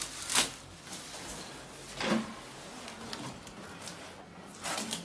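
Bubble-wrapped packing being pulled out of a photocopier's paper-drawer bay. It gives a few short knocks and rustles against the machine: one just after the start, one about two seconds in, and two close together near the end.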